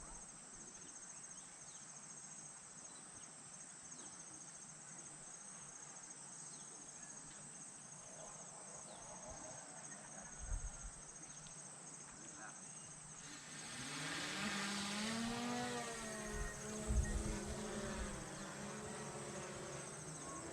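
Steady chorus of forest insects, a fast high pulsing trill that runs on unchanged. About two-thirds of the way in, a louder hiss rises and a wavering pitched sound joins over it.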